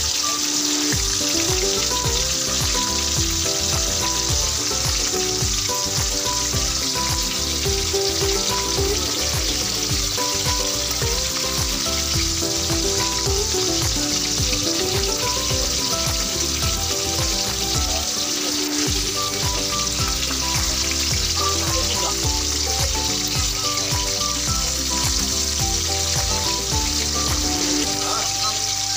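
Fish pieces sizzling steadily as they fry in hot oil in a metal wok, with background music playing over it.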